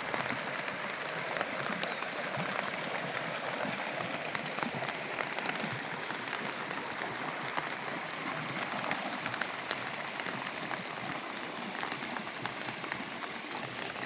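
Heavy rain falling steadily, with many scattered sharp drop hits, over the rushing of a flooded creek swollen with rainwater.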